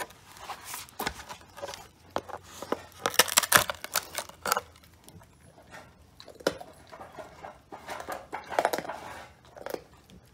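A Rottweiler gnawing a large scapula bone: irregular crunching, cracking and scraping of teeth on bone, busiest about three seconds in and again near the end.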